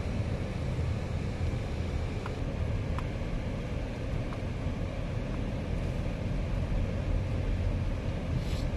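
Steady road and engine noise of a car driving, mostly low, with no change through the stretch.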